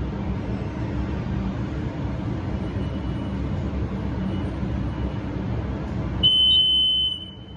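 Schindler hydraulic elevator car running downward with a steady low rumble. About six seconds in the rumble stops and a single loud high electronic beep sounds for about a second: the car's arrival signal.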